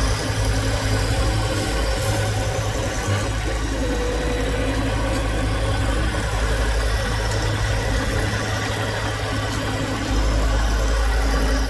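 John Deere 1025R compact tractor's three-cylinder diesel engine running steadily as its front loader raises a load on pallet forks; the low engine note grows a little louder near the end.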